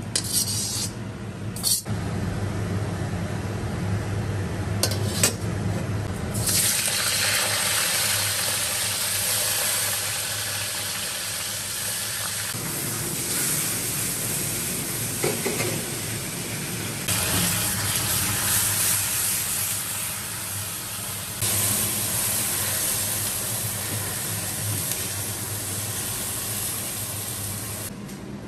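A metal ladle scrapes and clinks against a wok as the food is dished out. About six seconds in, a steady hiss of water and sizzling starts in the wok over the gas flame, rising and easing in level a few times.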